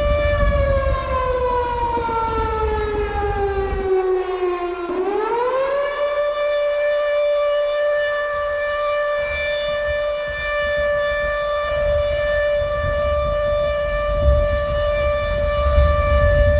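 Civil defense siren sounding as an earthquake-drill alarm: a steady wail that slides down in pitch over about four seconds, swoops back up, holds steady, and starts to fall again near the end. A low rumble runs underneath at the start and end.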